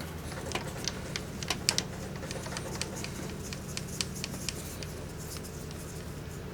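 Metal lathe running with a steady low hum, under a scatter of light, irregular metallic clicks and ticks that die away after about four seconds.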